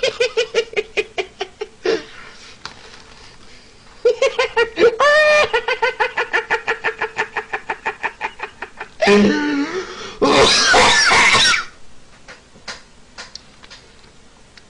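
A man's high-pitched, rapid belly laughter in quick even pulses, about six a second, in two long runs, then a loud breathy squealing burst about ten seconds in, trailing off into softer chuckles.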